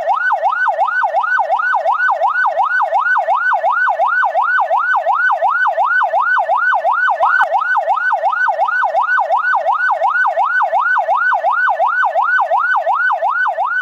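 Ambulance siren in a fast yelp, its pitch sweeping up and down almost three times a second, steady and unbroken.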